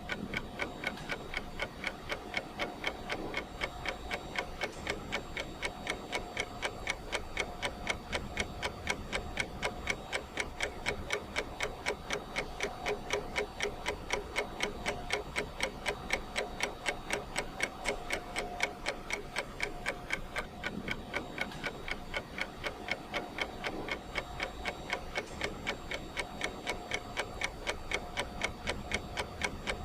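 Clock ticking steadily, with evenly spaced ticks that mark the countdown of a timer.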